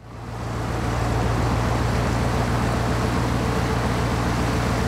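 Motorboat engine running steadily under way, a constant low hum under the rush of the boat's wake, fading in over the first second.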